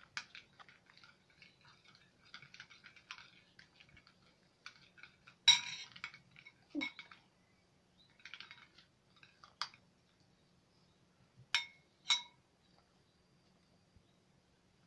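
Spoons clinking and scraping against bowls as slime is stirred, with a run of small taps and a few sharper clinks, the loudest about five seconds in and two close together near the end.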